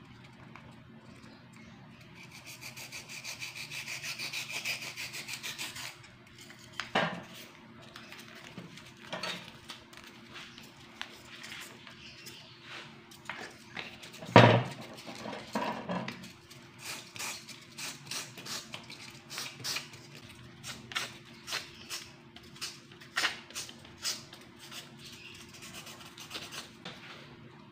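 A block of styrofoam rubbed back and forth on sandpaper to shape a fishing float. About two seconds in comes a run of quick, even scraping strokes. After that the scrapes are slower and scattered, with a couple of sharp knocks, the loudest about halfway through, over a faint steady hum.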